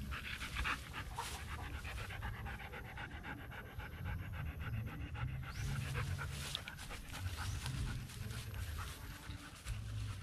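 Doberman panting quickly and evenly, mouth open.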